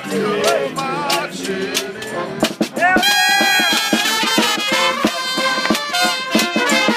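A street brass band playing, trumpets over a steady beat of drum and cymbal strokes. Crowd voices sing along over the first couple of seconds, and the horns come in strongly about two and a half seconds in.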